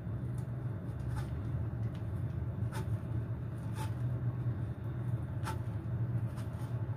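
Cheese being grated on a metal box grater: faint scrapes and a few light ticks, over a steady low hum.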